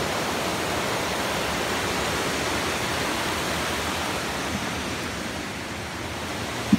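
Steady rushing of a woodland stream, an even hiss of running water, with a short sharp sound at the very end.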